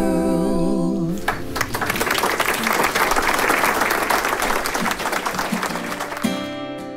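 Several women's voices hold a final chord in harmony with vibrato, cut off about a second in. Audience applause follows for about five seconds. Near the end, acoustic guitar strumming starts.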